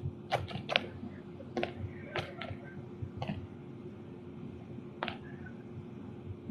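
A few light, sharp clicks and taps, about seven of them, bunched in the first three seconds with one more about five seconds in, over a faint steady hum.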